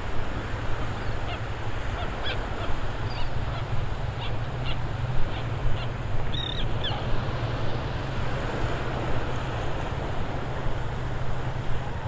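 A flock of shorebirds calling, a dozen or so short high calls between about one and seven seconds in, over steady surf and wind on the microphone.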